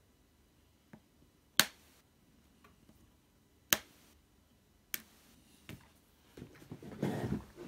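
Sharp plastic clicks and snaps as a small blue-handled tool pries at the keyboard's retaining clips on a Packard Bell Dot S netbook: two loud snaps and a few fainter ticks, then a rustling scrape near the end.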